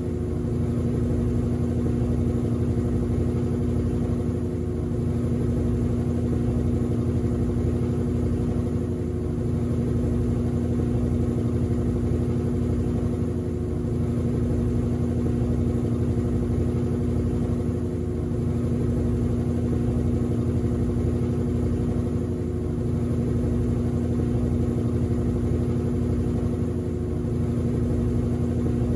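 Top-loading washing machine on its spin cycle: the drum spinning with a steady motor hum and a low, even pulsing underneath, dipping slightly in loudness every four to five seconds.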